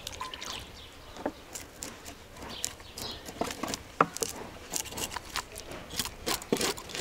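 Knives scraping the scales off small whole fish on a wooden cutting board: irregular short scrapes and taps, a few a second.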